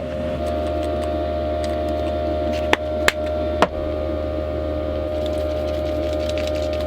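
Diesel heater buzzing steadily, with three sharp knocks of cooking utensils in the middle.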